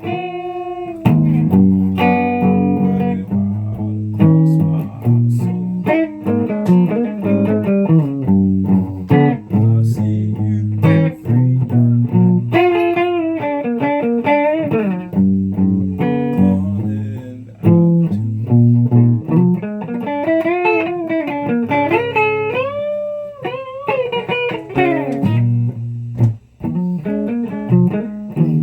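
Guitar music: a steady run of plucked notes and chords over low bass notes, with several bent notes that slide up and back down about two-thirds of the way through.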